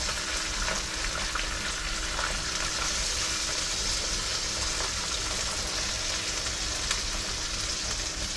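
Mangrove jack fillets sizzling as they shallow-fry in lemon, garlic and butter in a frying pan: a steady hiss with a few faint ticks.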